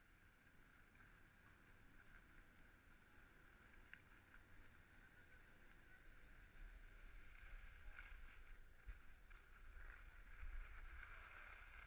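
Faint, muffled hiss of skis sliding over packed snow, with a low rumble of wind on the microphone that grows stronger about halfway through.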